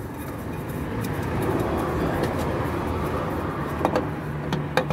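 Motor vehicle rumble that swells over the first two seconds and then holds steady, with a couple of sharp clicks near the end.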